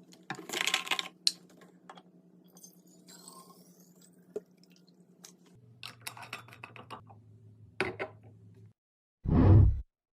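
Light clicks, taps and short rustles of household items being handled and set down, over a faint steady hum. About nine seconds in comes one loud, dull thump.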